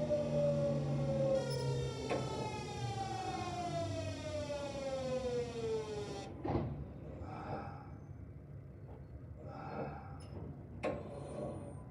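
The traction inverter and motors of a Kintetsu 1026 series train whine with several tones that fall steadily in pitch under regenerative braking. The whine cuts off about six seconds in as the train comes to a stop. In this train the inverter whine carries a rasping, growling noise that is not normally heard, a sign of a deteriorating or faulty inverter. After the whine stops there is a knock, soft brake and air noises, and another clunk near the end.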